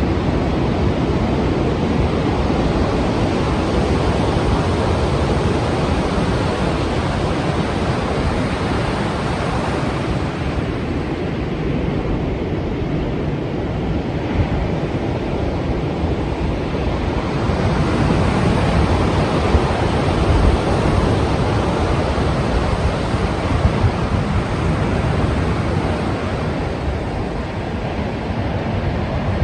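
Strong sea surf: waves breaking and rushing in a continuous wash, swelling a little louder about two-thirds of the way through.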